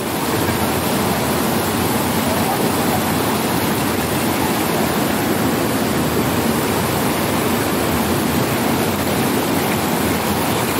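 River rapids rushing over boulders: a steady rush of whitewater.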